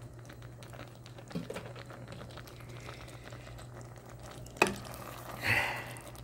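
Sauce-coated fish cakes and vegetables being stirred in a pot, with soft wet squelching and faint ticks of the utensil against the pot. There is one sharp knock about four and a half seconds in, over a steady low hum.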